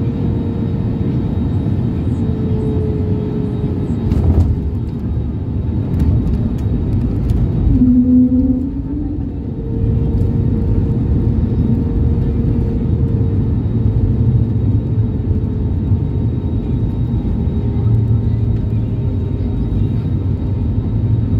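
Cabin noise of an Airbus A320-family jet airliner taxiing: a steady rumble from the engines at low thrust, with a faint whine above it. The sound dips briefly about nine seconds in.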